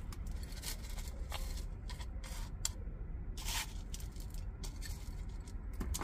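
Gritty potting soil scooped with a plastic soil scoop and poured into a ceramic pot: a run of short, scattered rustling and scraping pours.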